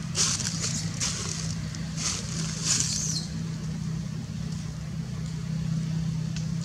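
A steady low motor hum, like an engine running nearby, with a few short high-pitched hissing sounds in the first three seconds.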